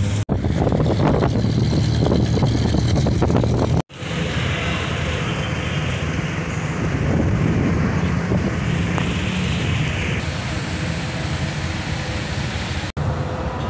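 Street traffic noise: road vehicles running and passing, with wind on the microphone. The sound cuts out briefly twice.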